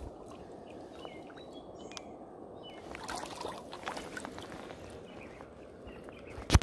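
River water running steadily, with scattered small clicks and a single sharp knock near the end.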